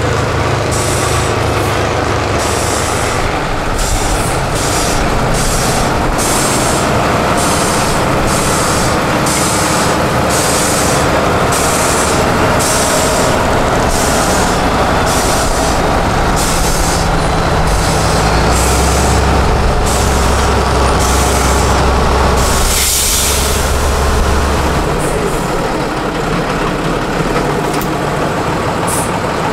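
Heavy trial-truck diesel engines running hard under load as an 8x8 Tatra truck is towed out of a mud pit by another truck, with a deeper, stronger engine note from about 18 s to 25 s. Short hisses repeat a little more than once a second through most of the first 20 seconds, and there is one loud hiss about 23 s in.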